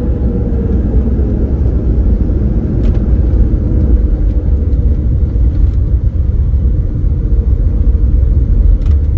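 Cabin noise of an Embraer 195-E2 rolling along the runway after touchdown: a loud, steady low rumble from the landing gear and airframe, with the engines' faint hum. A few light knocks come through along the way.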